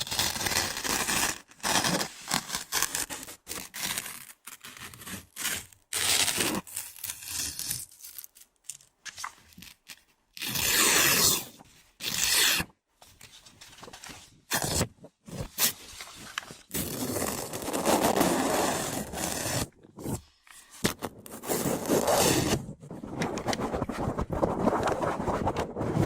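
Close-miked ASMR trigger sounds: irregular bursts of scratching and scraping right at the microphone, some short and some drawn out over a second or two, with brief silent gaps.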